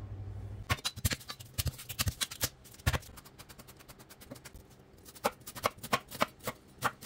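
Chef's knife chopping garlic on a bamboo cutting board: a quick run of knocks on the wood, then slower, spaced cuts as the blade goes through a half onion near the end.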